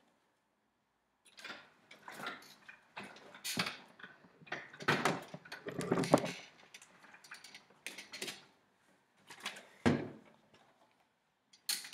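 Handling noise as a whiteboard is fetched and set in place: irregular knocks, bumps and rustles, with a heavier thump near the end.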